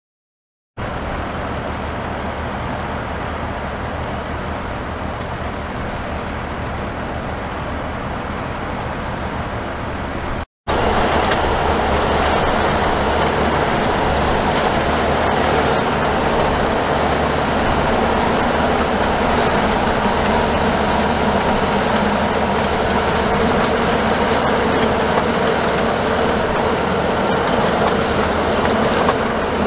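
Fendt 800-series Vario tractors working a potato field, their diesel engines running steadily. It starts about a second in, breaks off briefly about ten seconds in, and then comes back louder, from a Fendt 828 close by.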